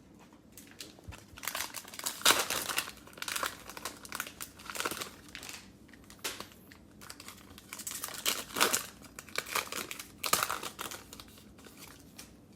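Cellophane wrapper of a basketball card cello pack crinkling in a run of irregular rustles as it is torn open and handled.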